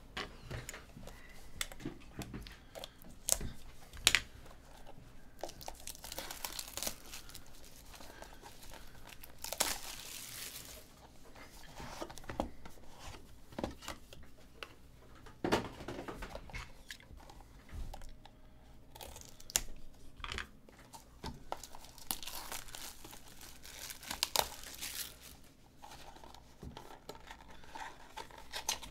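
Cardboard and paper card-box packaging being torn open and crinkled by hand, in several rustling stretches, with sharp clicks and knocks as the boxes are handled.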